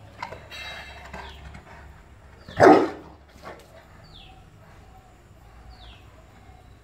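Bullmastiff gives a single loud bark about two and a half seconds in.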